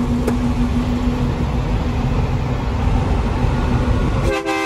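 Steady engine and road rumble inside the cab of an International truck cruising in fifth gear, with a constant hum. Near the end a horn sounds, a steady held chord.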